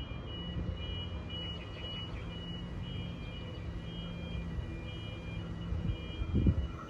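Low, steady rumble of a distant approaching train, with a faint high electronic beeping repeating in short pulses about twice a second. A short low buffet of wind on the microphone is the loudest moment, near the end.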